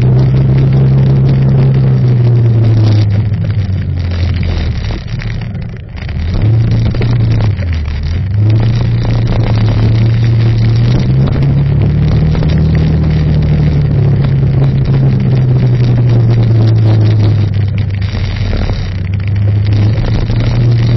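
Vehicle engine running close by, its pitch and loudness dropping as it slows about four to eight seconds in, then climbing again as it picks up speed.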